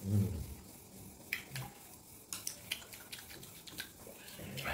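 Mouth sounds of chewing a mouthful of watermelon close to the microphone: a low thump at the start, then scattered short wet clicks and smacks.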